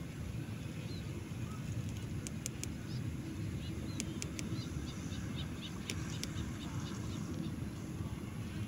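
Wind buffeting the microphone as a steady low rumble, with a few faint, short, high chirps of small birds and several sharp ticks in the middle.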